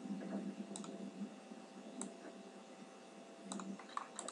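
A few separate computer mouse clicks, spaced about a second or more apart, over a faint steady hum.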